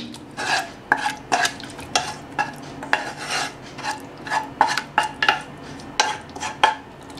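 Wooden spatula scraping thick chicken masala out of a nonstick pan into a nonstick pot, with repeated sharp taps of the spatula against the pan and pot among the softer scrapes.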